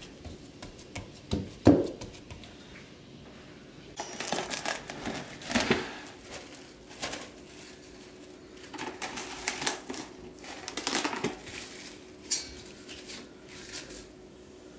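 A few knocks of hands working dough in a stainless steel bowl, then plastic cling wrap crinkling in bursts as it is pulled from its box and stretched over the bowl, from about four seconds in until about twelve seconds.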